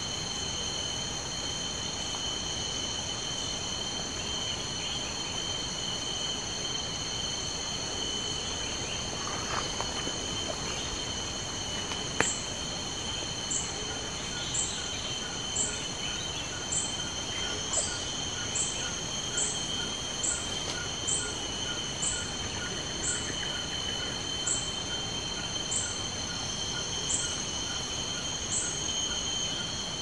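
Steady insect drone at several high pitches. About twelve seconds in comes a single sharp click, followed by a run of short, very high chirps about once a second over a faint, fast ticking.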